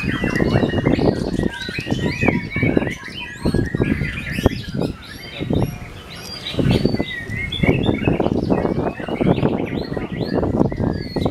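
Caged songbird singing a rapid, varied string of chirps and whistles, with a continuous low background din underneath.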